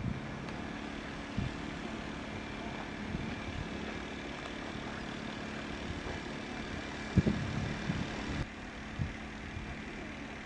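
Steady outdoor hum of distant engines, with a faint low steady tone under it and a few soft thumps about seven seconds in. The high hiss drops abruptly about eight seconds in.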